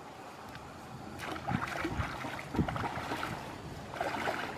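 Shallow stream water sloshing and splashing as a person wades and moves their hands through it, with a few soft knocks.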